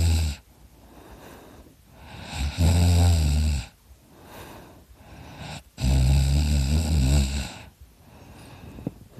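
A person snoring heavily in a deep nap: the tail of one loud, low snore, then two more about three seconds apart, each lasting about a second, with quieter breaths between them.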